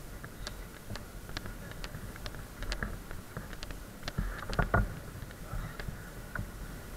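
Footsteps on a hard floor with irregular clicks and knocks, about one or two a second, over a low rumble, and a louder cluster of knocks a little past the middle.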